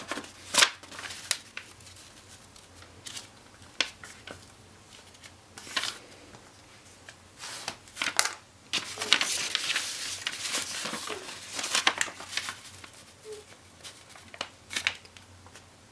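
A sheet of origami paper being folded, flattened and creased by hand: scattered crisp crackles and rustles, with a longer stretch of rustling around the middle.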